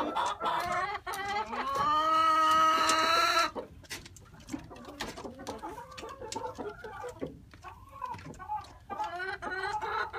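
A white Leghorn rooster crowing, a long drawn-out crow that cuts off about three and a half seconds in. After it come quieter, shorter clucking calls and scattered light clicks.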